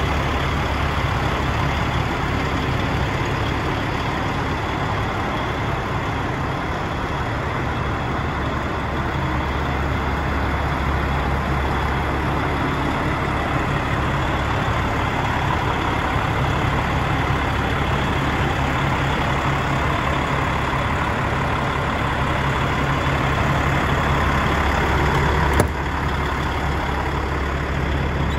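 DAF XF105 truck's 12.9-litre PACCAR MX straight-six diesel idling steadily, with a deep, even rumble. A single sharp click near the end.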